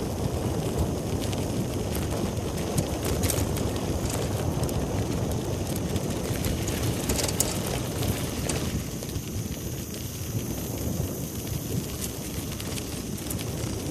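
Wind rushing over the microphone of a bicycle in motion, with rumbling tyre noise and a few light scattered clicks.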